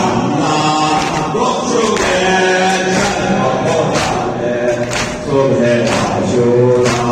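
Male voices chanting a devotional song with long held notes, over a steady beat that falls about once a second.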